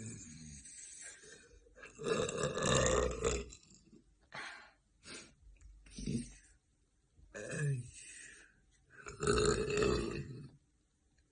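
A woman burping: two long, loud burps, one about two seconds in and one near the end, with a few shorter, quieter burps between.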